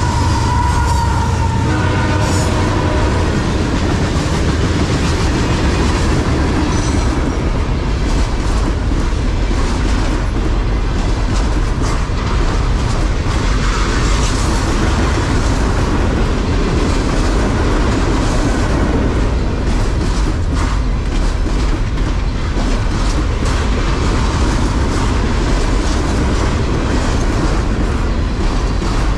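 A CSX freight train rolling past close by: a steady loud rumble of wheels on rail with a continuous run of clicks from the cars going over the joints. The locomotive horn's last blast trails off in the first two seconds or so.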